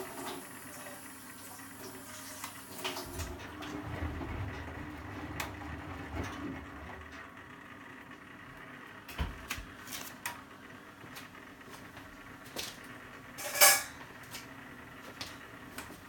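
Bendix 7128 washing machine running a synthetics 60 wash. A high hiss stops about three seconds in and a low motor hum starts. Scattered clicks and knocks come through, with one loud clunk near the end.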